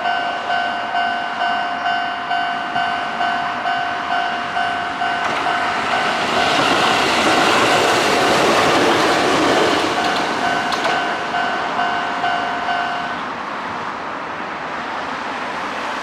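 Japanese railroad crossing warning bell ringing its steady repeating 'kan-kan' ding, about one and a half strikes a second, while a Sanyo Electric Railway train rushes through the crossing. The train's noise builds from about five seconds in and peaks past the middle. The bell stops about three seconds before the end, leaving a low background hum.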